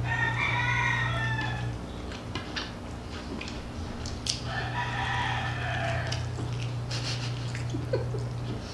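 Two long animal calls, each lasting about two seconds: one at the start and one about halfway through. Under them run a steady low hum and a few small clicks.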